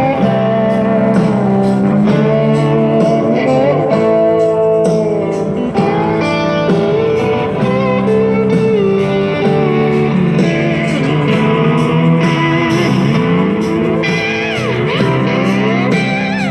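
A blues-rock song played loud through a homemade cooler boombox's speakers: an instrumental guitar break with bending, gliding notes over a steady bass and chord backing.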